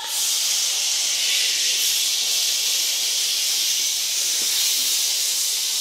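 Children hissing together in one long, steady breath, as a group breathing warm-up.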